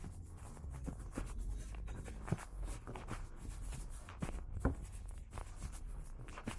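Footsteps scuffing and tapping on paving at an irregular pace, over a steady low rumble.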